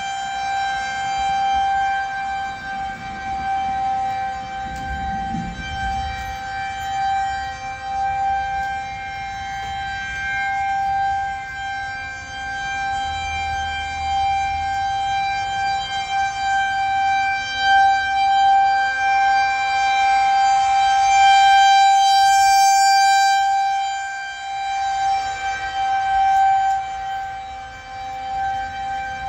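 Federal Signal 2001-130 rotating electromechanical outdoor warning siren sounding a steady tone for a tornado warning. The pitch holds level while the loudness slowly swells and fades, loudest about three quarters of the way through.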